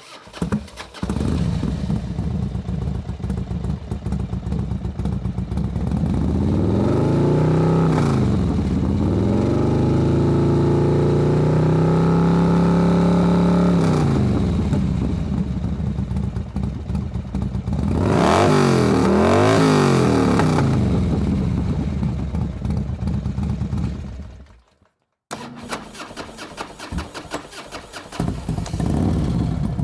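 Motorcycle engine idling, then revved: the pitch climbs and holds high for several seconds before dropping back. It idles again, then takes a run of quick throttle blips. After a short silence near the end, the engine idles unevenly.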